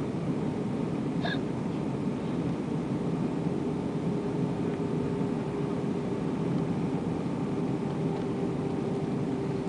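Steady cabin noise inside an Airbus A320 during descent: an even rush of engine and airflow with a steady droning hum. A brief high chirp sounds about a second in.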